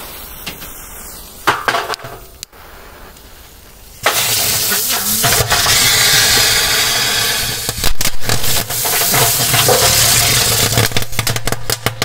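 Small 'rose' fireworks burning in a washing-machine drum: a brief crackle early on, then a sudden loud hiss about four seconds in that sputters and crackles, turning into rapid crackling near the end.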